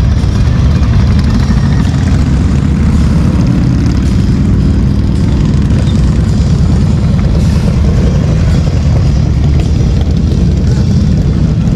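Motorcycle engines running, a loud, steady, deep sound with no pauses.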